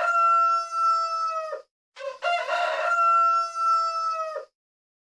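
Rooster crowing twice: the end of one crow, then a full crow starting about two seconds in. Each ends on a long held note that drops away at the end.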